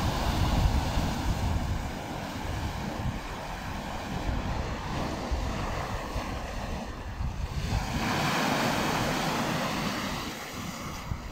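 Sea waves breaking and washing over a rocky shoreline, with wind buffeting the microphone. The rush of surf swells up louder about eight seconds in.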